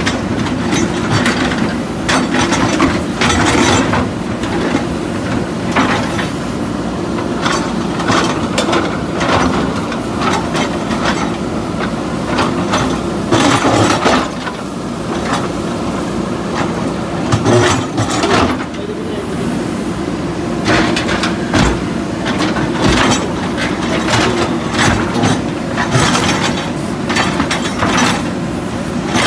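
Two JCB 3DX backhoe loaders' diesel engines running steadily under load, with frequent clanks and knocks as their backhoe buckets dig into and break up the concrete and rubble of the bridge.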